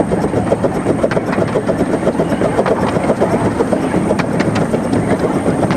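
Krupp 4-6-2 Pacific miniature steam locomotive, 15-inch gauge, working its train with a quick, steady exhaust beat, heard from the footplate, and sharp clicks from the wheels on the track.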